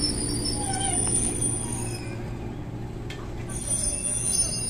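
JR 211 series electric train braking to a halt at a platform: squealing brakes in short falling glides about a second in, over a steady low hum from the train. Faint high squeaks follow near the end.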